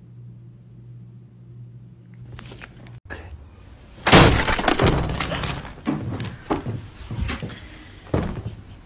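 A low steady hum, then about four seconds in a sudden loud crash that dies away over a second, followed by four smaller knocks and clatters.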